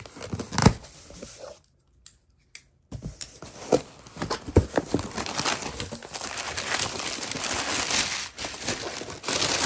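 Packing tape and cardboard being torn open on a shipping box, then crumpled newspaper and bubble wrap crinkling and rustling as the flaps are pulled back and the packing is handled. A brief silent gap comes about two seconds in.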